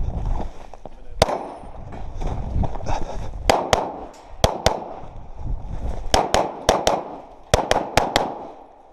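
Pistol shots fired in quick pairs, about a quarter second apart, roughly a dozen in all, with short pauses between the pairs.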